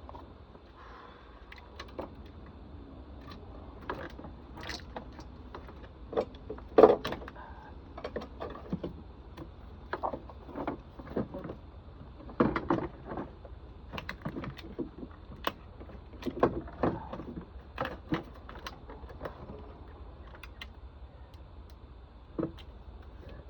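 Irregular clinks, knocks and rattles of metal parts and tools being handled while working on an electric car's inverter assembly, the loudest knock about seven seconds in.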